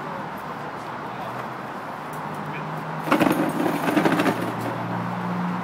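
Oak barrel staves knocking and clattering against each other and the metal hoop for about a second, midway, as they are gathered upright into the hoop to raise a cask. A steady engine hum runs underneath.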